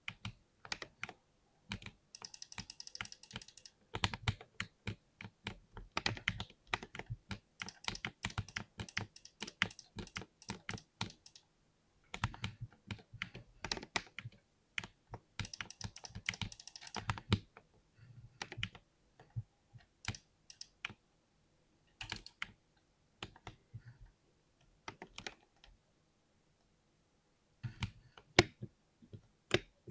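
Typing on a 60% mechanical keyboard with lubed Cherry MX switches: rapid keystrokes in bursts with short pauses, and a longer pause about 25 seconds in before typing resumes.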